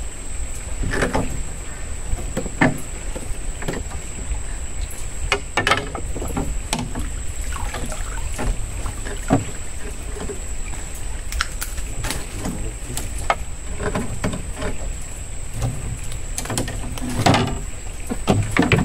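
Knocks and bumps of rods, reel and landing net against a wooden fishing boat as a fish is reeled in and netted aboard. The loudest thump comes near the end as the net is lifted into the boat, over a low rumble and a steady high whine.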